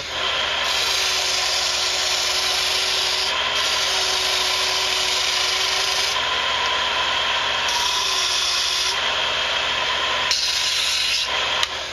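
Power sander grinding the foot end of a wooden Native American flute to shorten it, because its bottom note is slightly flat. The motor hums steadily while the rasping of wood on abrasive rises and falls in stretches, then stops near the end.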